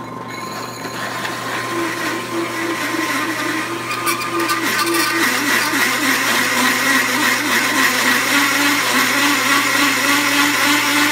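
Large hole saw in a drill press at its slowest speed cutting through quarter-inch steel plate: a steady grinding, scraping cut that grows louder over the first few seconds as the teeth bite, with a wavering low tone running through it. The drill press's drive belt is a little loose.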